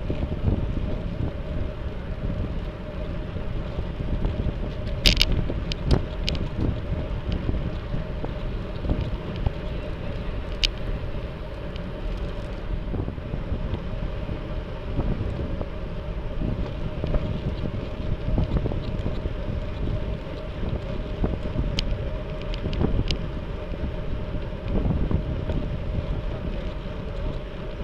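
Wind buffeting the microphone of a camera riding along on a moving road bike: a steady low rumble, with a few sharp clicks about five seconds in and once more about ten seconds in.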